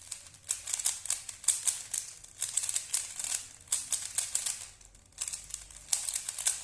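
Rubik's Cube being scrambled: rapid plastic clicking and clacking as its layers are twisted, in bursts with a few short pauses.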